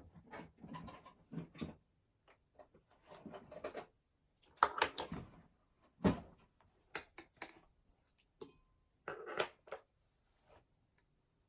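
Desk-work handling noises: irregular rustles and light taps of objects being moved and handled, with a sharp knock about six seconds in.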